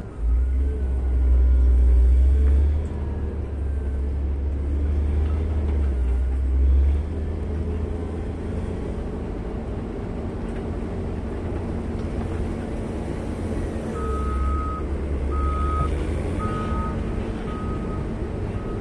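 Caterpillar 140M motor grader's diesel engine running under load while it grades loose dirt, louder for the first seven seconds. About 14 seconds in, its reversing alarm starts, a single tone beeping in an even rhythm.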